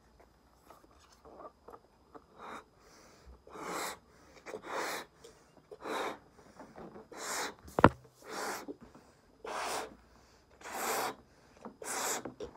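A rubber balloon being blown up by mouth: hard breaths puffed into it, roughly one a second, after a few quieter seconds of small handling noises. A short sharp squeak stands out about eight seconds in.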